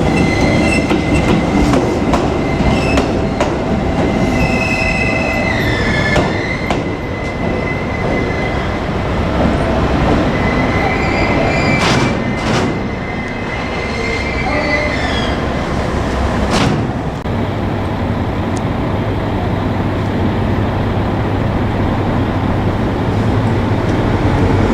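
JR Kyushu 787-series electric train rolling past slowly, its wheels squealing on the rails, with a few sharp clacks over rail joints about halfway through.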